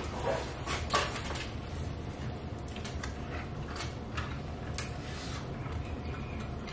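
Scattered light clicks and rustles as loose electrical wires are handled and pulled through a T8 fluorescent light fixture during ballast rewiring. The sharpest clicks come in the first second and a half, then fainter ticks every so often, over a steady low room hum.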